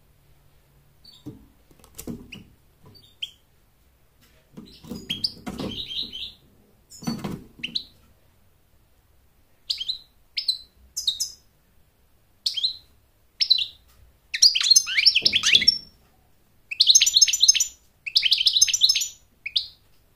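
European goldfinch in a cage calling and singing. It starts with scattered short, sharp high calls, then from about two-thirds of the way in runs into longer twittering, buzzy song phrases. A few dull thumps come in the first half and once during the song.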